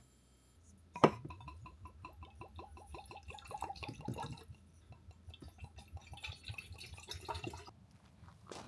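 Whiskey glugging from a bottle into stainless steel cups, with quick irregular gurgles that run for several seconds. A sharp clink comes about a second in.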